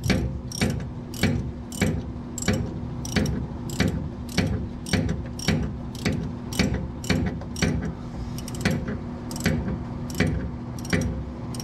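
Hand ratchet clicking as it turns a 14 mm bolt, about two strokes a second, each backswing a short burst of pawl clicks, over a steady low hum.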